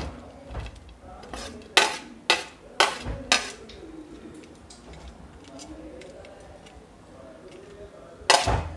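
Metal spoon clinking and scraping against a plate as fried onions, cashews and raisins are pushed off onto rice in a pan: about five quick clinks in the first few seconds, then a quieter stretch and one louder knock near the end.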